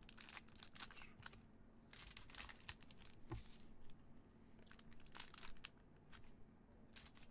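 Foil trading-card pack wrappers crinkling in gloved hands, with short, sharp crackles as the packs are handled and cut open with scissors.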